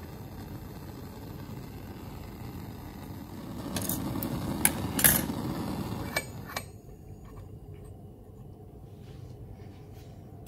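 Bunsen burner hissing steadily, louder around the middle with several sharp metallic clinks of tongs and glass. After about six and a half seconds the hiss drops to a softer, duller one as the burner's air intake is closed and the flame turns yellow.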